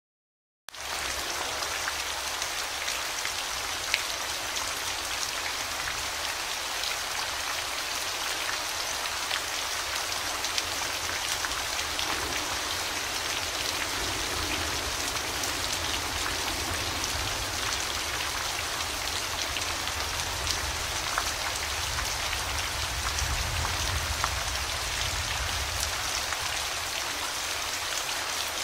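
Steady rain falling on a surface, a dense even hiss with individual drops ticking through it and a low rumble underneath. It starts abruptly just under a second in.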